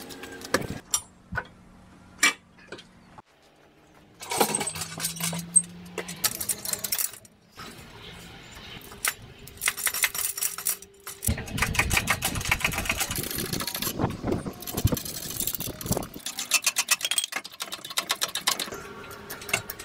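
Metallic clanks and clicks of hand work on a gearbox slung from an engine crane by a ratchet strap and chain. About halfway through comes a run of rapid, even ratcheting clicks lasting several seconds.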